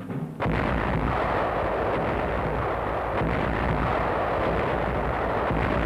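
Heavy railway gun firing: a sudden blast about half a second in, then a long, loud, steady rumbling noise of the discharge.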